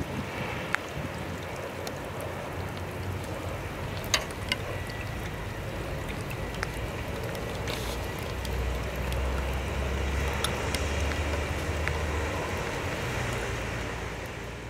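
Rain and wind, with scattered sharp ticks of raindrops and a gust rumbling on the microphone for a few seconds past the middle.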